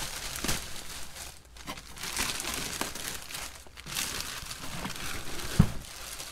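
Clear plastic packaging being ripped and pulled off a large fabric gear bag, crinkling and rustling irregularly, with a single thump about five and a half seconds in.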